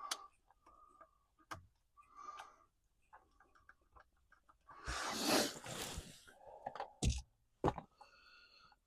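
Hand work on car dash parts: short squeaks, clicks and knocks, with a longer scraping rustle about five seconds in and two sharp knocks near the end.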